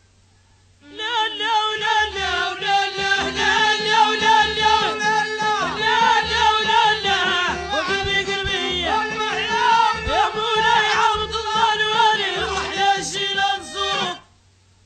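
Moroccan folk song: a wavering, ornamented melody over a low pulsing beat, starting about a second in and cutting off abruptly shortly before the end.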